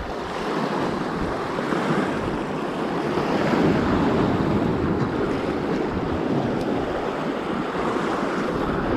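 Sea surf washing against the shore, swelling a little in the middle and easing again, with wind on the microphone.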